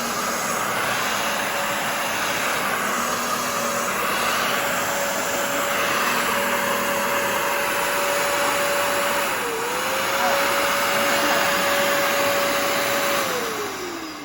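Shark CarpetXpert EX201 upright carpet cleaner running, its suction motor giving a steady whine over a loud rush of air and water. Near the end it is switched off and the whine falls away as the motor winds down, still drawing the water up.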